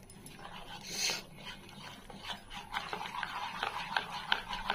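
Thick gram-flour batter being stirred and beaten in a bowl: a quick run of scraping and clicking strokes that grows busier about halfway through.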